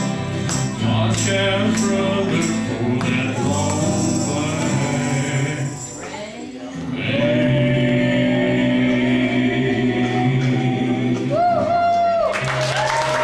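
Live country-gospel band ending a song: several voices singing in harmony over strummed acoustic guitars, with tambourine hits that stop about a second in. The music slows into a long held final chord and note, and applause breaks out near the end.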